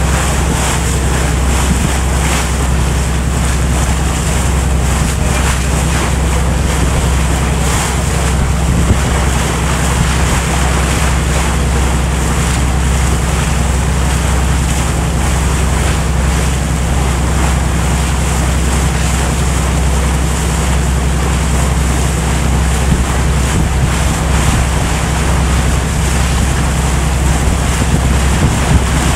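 A boat's engine running at steady cruising speed, a constant low hum, with wind buffeting the microphone and water rushing past the hull.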